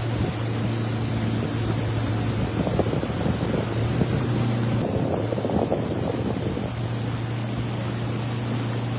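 Small boat's motor running steadily as the boat moves along the river, with water and wind noise.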